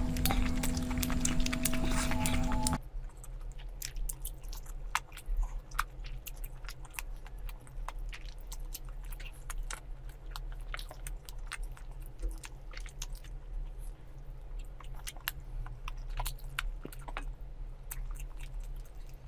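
Close-miked eating: chewing and biting with many small crisp, wet clicks and crunches. Before it, a louder steady sound with held tones cuts off abruptly about three seconds in.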